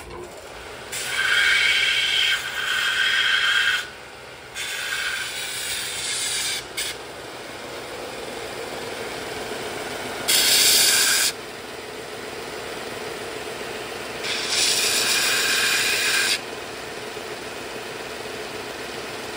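Vertical belt grinder running with a steady motor hum, while a line-boring tool bit is resharpened on it. The bit is pressed to the belt four times, each pass a loud grind lasting one to three seconds over the hum.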